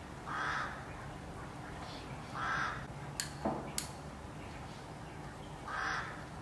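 A crow cawing three times, a couple of seconds apart. A few sharp clicks come near the middle, from a plastic garden-hose spray gun being handled.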